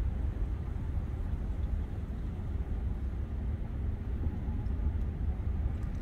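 Steady low outdoor rumble with no distinct events: a constant background drone of the kind made by distant traffic or wind on the microphone.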